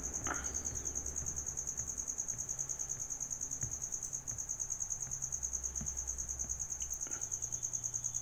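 A cricket trilling steadily in the background: a high, rapidly pulsing chirp that runs on without a break, over a faint low hum.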